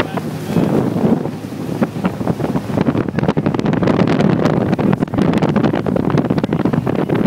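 Speedboat under way at speed: the Volvo V6 engine running steadily under heavy wind buffeting on the microphone, with water rushing past the hull.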